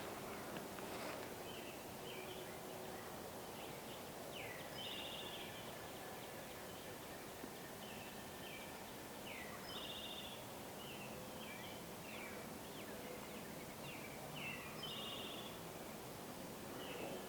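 A songbird singing the same short phrase over and over, a few quick notes ending in a buzzy trill, about every five seconds, over faint outdoor background noise.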